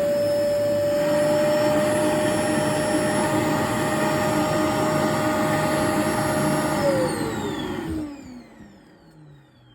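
Vacuum cleaner with its nozzle removed, running steadily with a high motor whine. About seven seconds in it is switched off, and the whine falls in pitch as the motor spins down.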